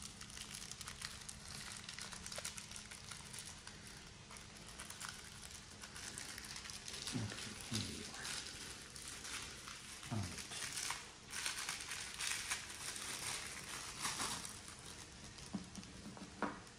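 Plastic packaging crinkling and rustling as it is handled, in an irregular run of small crackles that grows louder in the second half.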